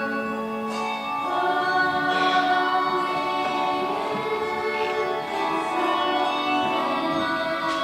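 A choir singing held chords with instrumental accompaniment, the harmony changing a little over a second in.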